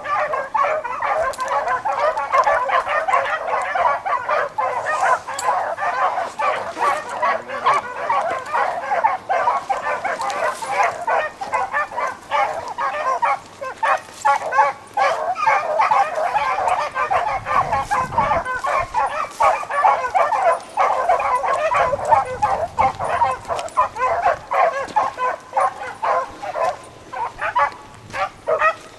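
A pack of beagles baying continuously on a rabbit's trail, many voices overlapping in a steady chorus of yelps: the hounds are running the line in full cry.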